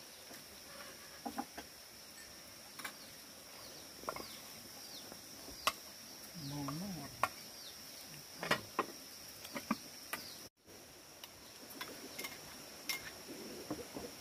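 Chickens clucking, with short falling chirps and scattered sharp clicks and knocks, over a steady high-pitched insect drone.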